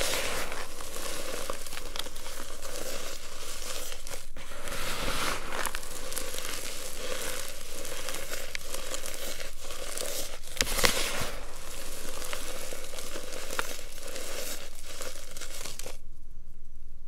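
Reformed baking soda, cornstarch and gym chalk being crushed and squeezed in the hands: dense, continuous crunching and crackling of the crumbling chalk, with one louder crunch about eleven seconds in. The crushing stops near the end.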